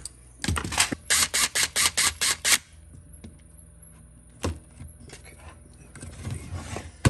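A quick run of about ten sharp clicks and rattles over two seconds, then a single knock about four and a half seconds in and another at the end: parts of a Stihl MS200T chainsaw being handled and fitted during reassembly.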